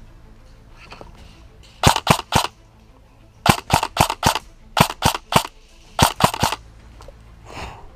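Airsoft AR-15 electric gun (AEG) firing about fourteen sharp shots in four quick strings of three to five, fired in rapid single shots.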